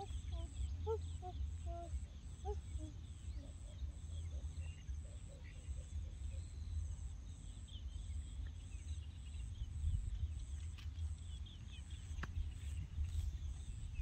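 Outdoor ambience: a low, wavering rumble of wind on the microphone, with short bird chirps in the first few seconds and a faint, steady pulsing insect drone high up.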